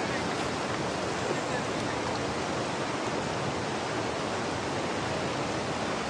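Steady rush of fast-flowing river water, an even hiss with no change.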